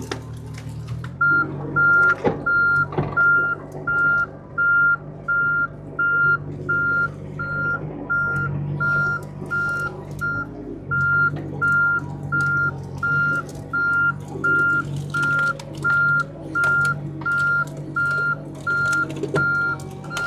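John Deere mini-excavator's travel alarm beeping in a steady high tone, about three beeps every two seconds and starting about a second in, with one short break midway. Under it the machine's diesel engine runs steadily as it travels and pushes, with a few clanks. The alarm sounds whenever the machine moves and restarts each time it changes direction or another control is touched.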